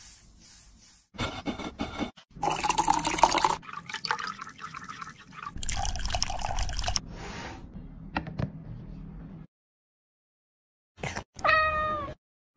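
Kitchen food-preparation sounds in short, abruptly cut clips, mostly liquid pouring and dripping. A brief pitched sound comes near the end.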